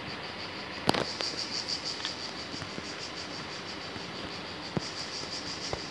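Cicadas singing: a steady, high, evenly pulsing buzz. A single sharp click stands out about a second in.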